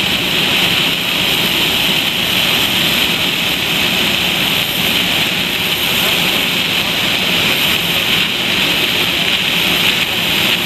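Steady jet-engine rush and whine of airliners on the apron, mixed with a constant hiss of rain.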